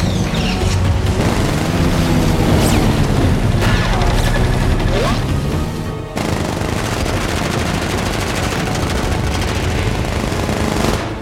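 Film score mixed with dogfight sound effects: booms and sweeping sounds at first, then from about six seconds in a fast, steady rattle of a Spitfire's machine guns firing in a long burst, cutting off near the end.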